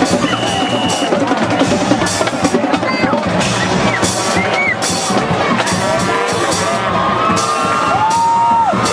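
Drums beating in a steady rhythm over the chatter and shouts of a football stadium crowd, with a short high whistle about half a second in.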